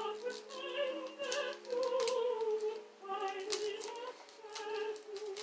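Background music with a singing voice holding long notes, and sharp clicks scattered through it.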